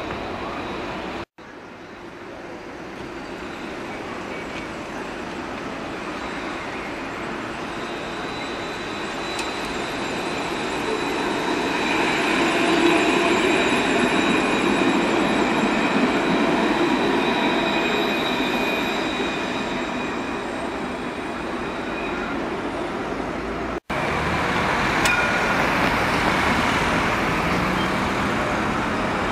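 Alstom Citadis tram passing close by on street track: its sound swells to a peak about 13 s in, with a few steady high whining tones over the rolling rumble, then fades. After an abrupt cut near the end, street traffic and another tram approaching.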